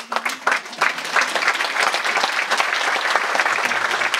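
Concert audience applauding at the end of a song: the clapping swells over the first second, then holds thick and steady.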